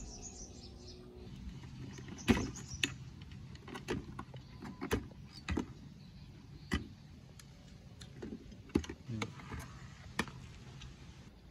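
Irregular clicks and light knocks as wire connectors are unplugged from an old CRT television's main circuit board and the board is lifted out of its plastic chassis. The loudest knocks come about two seconds in and near nine seconds in.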